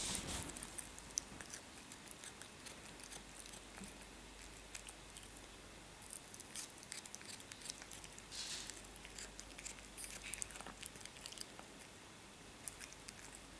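A cat chewing and crunching pieces of diced raw cucumber: faint, irregular crunches and clicks, a few small clusters coming closer together.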